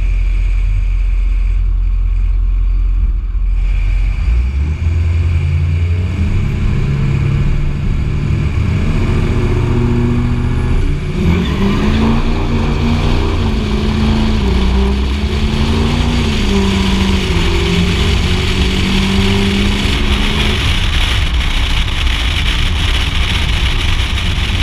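Ford Power Stroke V8 turbo-diesel pickup engine running loudly at the drag-strip start line, its note building about four seconds in. About eleven seconds in it launches, its pitch climbing and stepping down several times through the gears while wind rush rises with speed. Near the end the engine note drops away into wind and road noise as the truck coasts.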